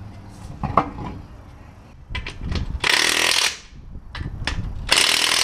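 Cordless impact wrench hammering lug nuts onto a truck wheel in two bursts, one about three seconds in and a shorter one near the end, after a few sharp clicks.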